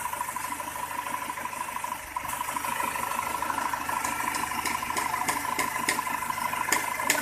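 Freshly overhauled Isuzu Panther diesel engine running, a steady drone that grows louder about two seconds in as it is given throttle. From about four seconds in, sharp ticks come at roughly two to three a second over the running engine.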